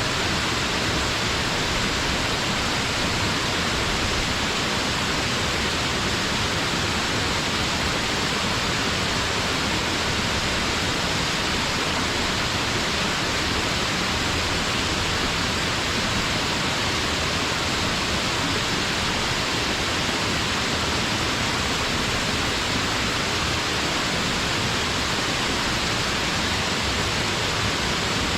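Waterfall rushing: a loud, steady hiss of falling and splashing water that doesn't change.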